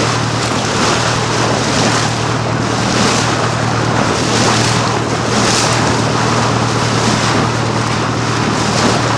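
A motor boat's engine running with a steady low hum under loud rushing of water and wind, the wind buffeting the microphone.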